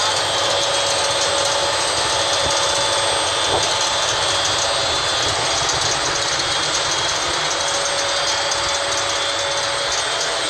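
Workshop ventilation fan running steadily: a constant rushing noise with a thin, steady whine over it.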